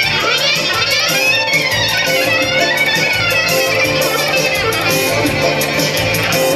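Loud folk dance music: a melody with quick sliding, ornamented runs over a steady beat.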